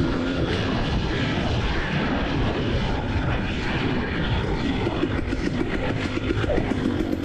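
KTM EXC 300 TPI single-cylinder two-stroke dirt bike engine running while being ridden, with a fast pulsing beat in the second half.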